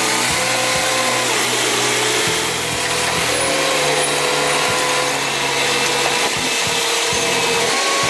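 Steady, loud machine noise with a faint whine that wavers slightly in pitch.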